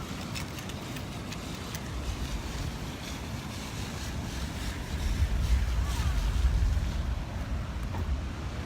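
Wind buffeting the microphone over surf on the beach in the rain. The low rumble swells about five seconds in and eases near the end, with scattered light ticks throughout.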